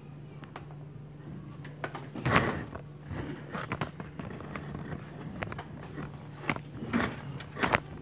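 Handling knocks and clicks from a camera on a makeshift tripod being moved and repositioned, the loudest knock about two seconds in and several more near the end, over a steady low hum.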